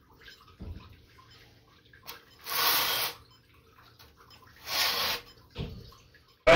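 Two brief swishing rubs about two seconds apart, a hand brushing across sheets of white board, with a few faint light clicks between them.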